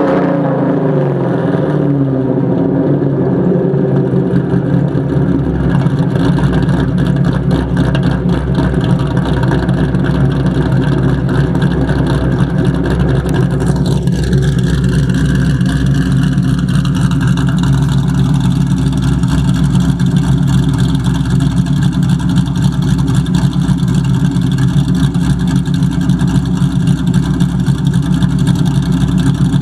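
Modified 1999 Ford Mustang GT 4.6-litre V8 with long-tube headers and an aggressive catback exhaust, its revs falling back over the first couple of seconds and then idling steadily. The engine has a tapping noise of unknown cause that the owner is trying to track down.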